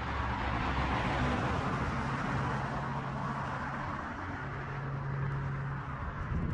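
Steady rushing wind and road noise from a scooter in motion, over a low, steady hum.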